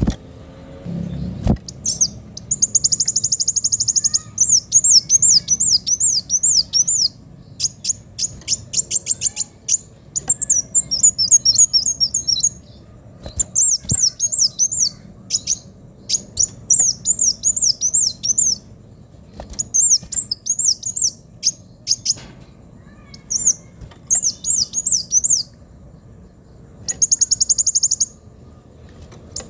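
A kolibri wulung sunbird singing loudly and continuously: rapid series of high-pitched, sharply rising and falling chirps and fast trills, broken by short pauses, with a dense buzzy trill near the start and another near the end.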